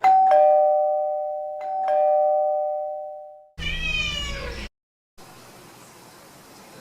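A two-tone ding-dong doorbell chime rings twice, about a second and a half apart, each ring left to die away. Then a single cat meow of about a second, after which only faint room noise remains.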